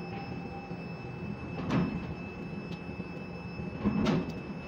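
Steady machinery hum of a ship-to-shore quay crane heard from its operator's cab, with a faint steady tone over it. Two short clunks stand out, one about two seconds in and a slightly longer one near the end.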